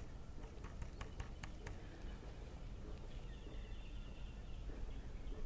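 Faint outdoor ambience with a low steady rumble. A few light clicks come in the first second or so, and a brief faint high trill follows about three seconds in.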